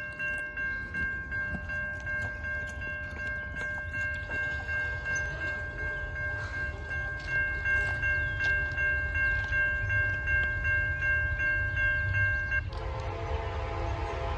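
Warning sounds of an approaching train in the distance: a steady, high ringing chord with a faint regular pulse, over a low rumble. Near the end it stops and a lower, fuller train horn chord takes over.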